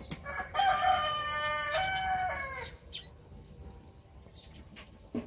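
A rooster crowing once, a single call of about two seconds held in two steps and falling away at the end.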